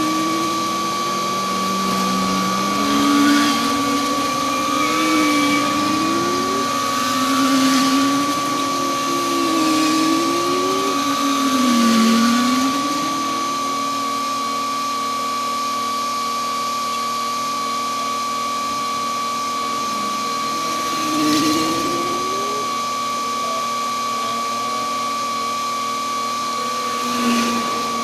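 Heavy road-paving machinery running, with a steady high whine over an engine note that rises and falls about every two seconds for the first half, then holds steady with two brief swells near the end.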